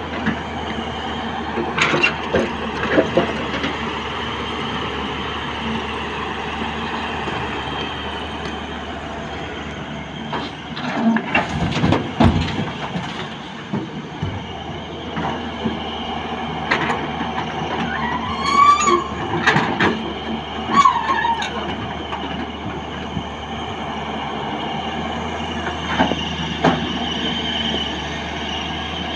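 Hyundai 210 hydraulic excavator's diesel engine and hydraulics running steadily through a dig-and-dump cycle, with scattered clanks and knocks and a heavier run of thuds a little before halfway as soil and rock land in a steel tipper body. A few short squeals come about two-thirds through.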